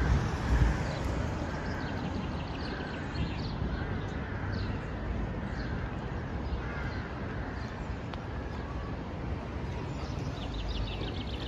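Steady road-traffic rumble on a city road bridge, a little louder at the very start, with scattered short bird calls over it.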